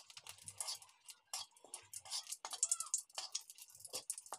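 Whole dried red chillies sizzling in hot oil in a metal kadai, with a constant irregular crackle of small sharp pops while a spatula stirs them.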